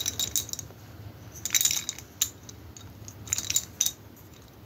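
Light clicking and clinking as a wooden toy tanker car is handled and turned over in the hand, its wheels and fittings knocking, in several short clusters.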